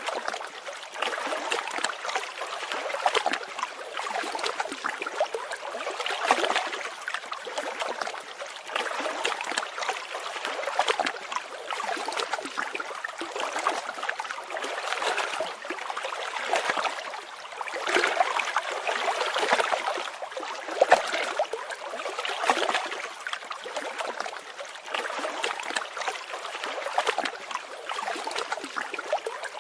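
Running water of a small stream, trickling and gurgling without a break.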